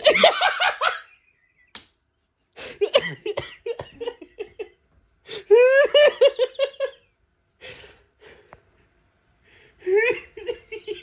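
A person laughing hard in four bouts, each a run of quick ha-ha pulses.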